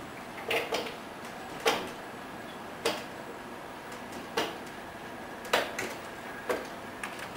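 Mobile service robot driving across a tiled floor, giving irregular sharp clicks and knocks about once a second, some in quick pairs, over a steady low background hum.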